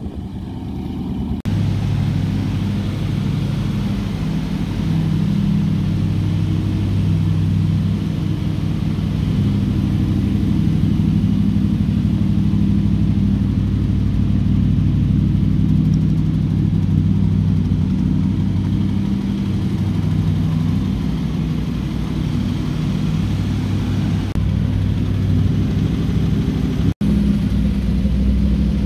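Triumph Stag's 3.0-litre V8 idling steadily and evenly. In the first second and a half there is wind on the microphone as the car drives past.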